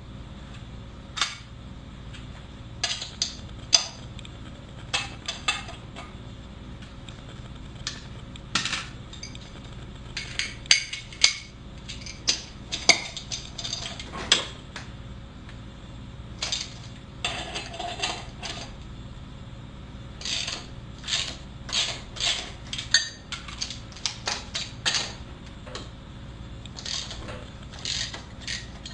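Irregular sharp metallic clinks and clicks of hand tools and hardware being handled while a hub-centric wheel spacer is fitted to a wheel hub. A steady low hum runs underneath.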